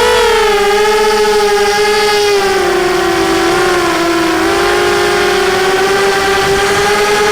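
FPV quadcopter's motors and propellers whining steadily, the pitch dipping a little in the middle and then slowly climbing again.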